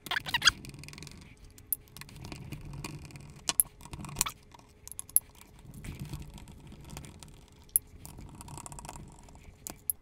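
Screwdriver working out the small metal screws from a neutral safety switch's cast casing: scattered sharp metallic clicks and clinks, about eight in all, over soft rubbing and handling of the part.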